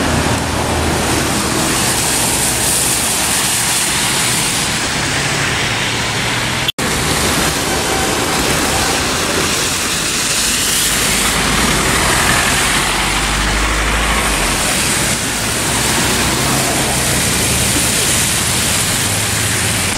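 Road traffic on a wet street: a steady hiss of tyres on wet asphalt, with a trolleybus passing close about halfway through and a deeper rumble a little after. The sound cuts out for an instant about a third of the way in.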